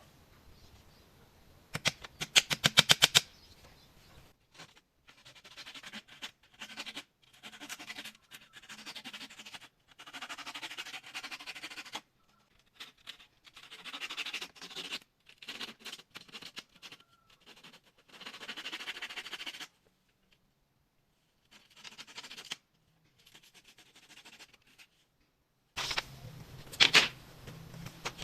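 Chickens moving about: wing flapping, rustling and short calls, heard in short snippets broken by sudden cuts to silence, with a quick run of sharp taps about two to three seconds in.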